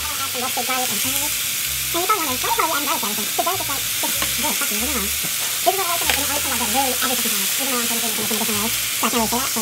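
Diced potatoes, carrots and green peppers sizzling in a hot pan as a spatula stirs them: a steady high hiss throughout. A faint wavering melody runs underneath.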